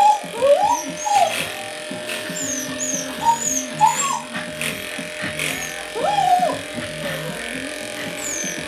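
Background music with a dog whining and yipping several times over it, short rising-and-falling cries scattered throughout; small birds chirp briefly now and then.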